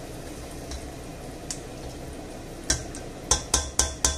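A spoon stirring lentils into a simmering stew in a stainless steel pot, soft and wet, then about five sharp taps with a short metallic ring as the spoon is knocked on the pot's rim in the last second and a half.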